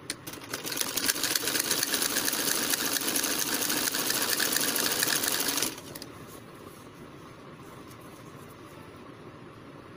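Black Singer sewing machine stitching a seam through fabric: it starts within the first second, runs at a fast even stitching rhythm for about five seconds, then stops suddenly.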